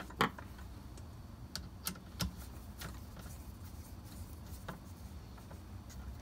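A handful of faint, scattered clicks and taps from a hand screwdriver and plastic parts as the indexing stop is screwed onto a Kreg Rip Cut's plastic sled.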